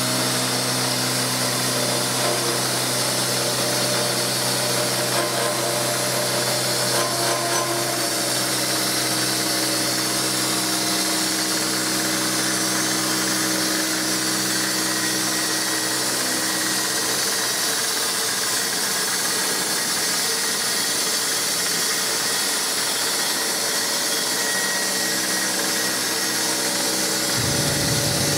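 Milling head of a TOS FUT machining centre cutting the metal blades of a Francis turbine runner with a long-reach end mill: a steady machining hum of several held tones over a continuous hiss. A deeper rumble joins near the end.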